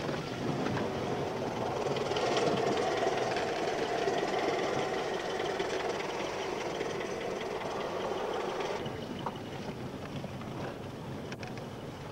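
A car's engine and tyres running, heard from inside the cabin as it drives slowly over a rough, debris-strewn road. The engine noise swells after a couple of seconds, then drops off sharply about nine seconds in, with a couple of sharp clicks near the end.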